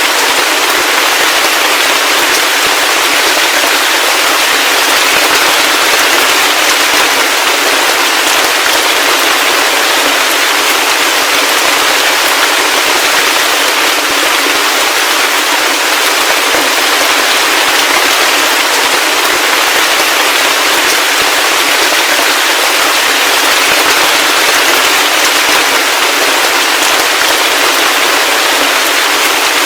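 Heavy rain falling steadily: a dense, crackling patter of countless drops with no low rumble and no thunder.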